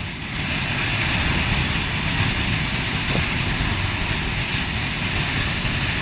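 Gas-fed training fire burning steadily on a pressure-vessel prop, a dense rushing noise with deep rumble, mixed with the hiss of a firefighting hose's water spray.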